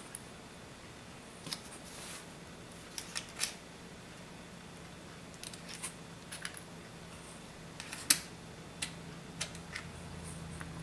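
Scattered light clicks and taps of small hand tools and parts being handled on an opened iPad 2 while old adhesive is peeled off, irregular and a few seconds apart, the sharpest click about eight seconds in.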